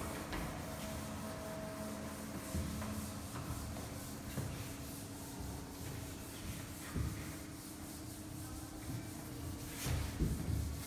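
Chalkboard duster rubbing and wiping across a chalkboard, with a few soft knocks along the way, over a faint steady hum.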